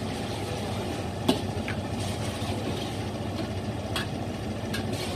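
Steady low hum of kitchen exhaust fans with a hiss, broken by a few light clicks, about one and a third seconds in and twice near the end.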